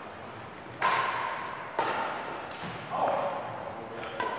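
Badminton rackets striking a shuttlecock during a rally: sharp hits roughly a second apart, each echoing in the large gym hall.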